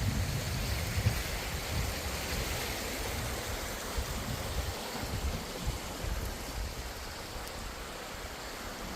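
Steady rushing hiss of flowing water from a forest stream, with low wind rumble on the microphone in the first few seconds that dies away.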